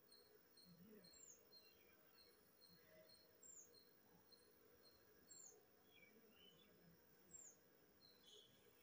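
Near silence with faint birds in the background: a short high downward chirp repeating about every two seconds.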